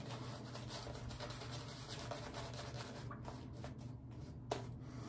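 Omega boar-bristle shaving brush scrubbing soap lather over a wet beard: a faint, steady, scratchy swishing of bristles on skin and whiskers. One sharp click sounds near the end.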